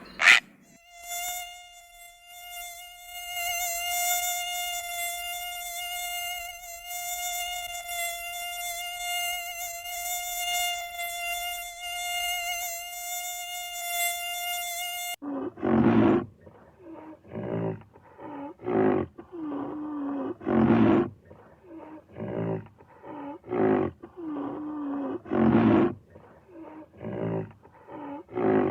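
Cicada singing: a steady, high, buzzing whine with one held pitch, which cuts off suddenly about 15 seconds in. After it, an animal gives a series of short, loud calls with a bending pitch, about a dozen of them, irregularly spaced.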